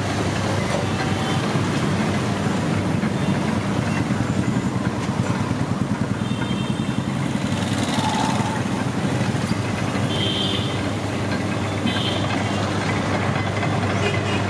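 Sugarcane crusher's engine running steadily with a low, even hum. A few brief high-pitched tones cut in now and then.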